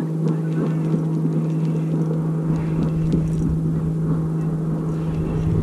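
Steady low hum of a bass boat's electric trolling motor, with wind buffeting the microphone from about halfway through.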